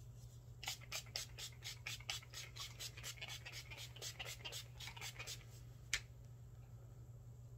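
Pump bottle of makeup setting spray spritzed over and over, about twenty quick hissing sprays at roughly four a second, followed by a single click about six seconds in.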